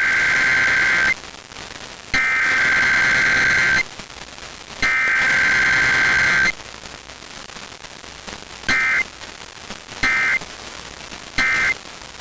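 Emergency Alert System SAME data tones: three long bursts of about a second and a half each, the encoded header that opens an alert, then three short end-of-message bursts, over faint static.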